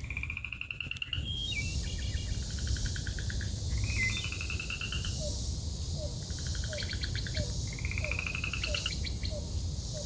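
Forest birds calling: repeated trilled phrases, each about a second long and rising slightly, alternating with buzzier pulsed phrases, and from about halfway a short low chirp repeated about twice a second. A steady low rumble runs beneath.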